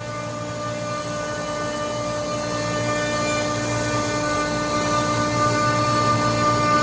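HVAC chiller running: a steady mechanical hum with several fixed tones, growing gradually a little louder.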